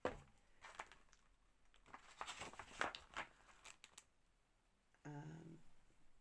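Faint rustling and small clicks of items and packaging being handled while rummaging in an unboxing crate, then a brief hum of a voice about five seconds in.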